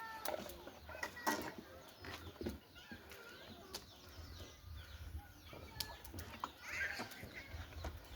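Outdoor yard ambience: scattered clicks and knocks with a few short bird chirps, one brief burst of chirping near the end, over a low rumble.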